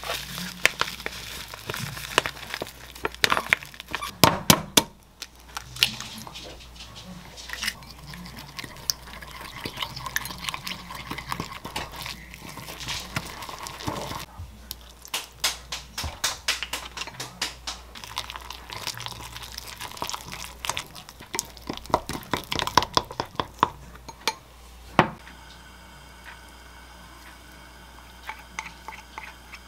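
A utensil stirring and scraping batter in a glass mixing bowl, with many quick, irregular clicks and taps against the glass. Near the end the tapping stops and it goes quieter as the batter is poured onto a waffle iron.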